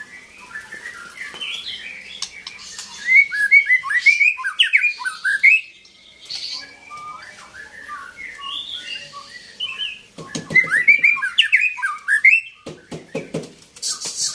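White-rumped shama (murai batu) singing: a fast, varied run of whistles and chirps in loud bursts, with a couple of harsher rasping stretches near the end.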